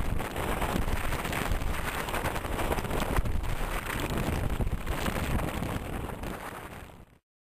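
Wind rushing over the microphone with road noise from a moving vehicle, a rough, even rumble that fades and cuts to silence just before the end.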